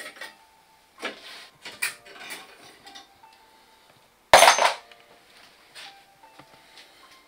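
Metal clinks from a rusty bicycle chain and parts being handled, then a loud jangling clatter about four seconds in as the chain drops onto a hard floor.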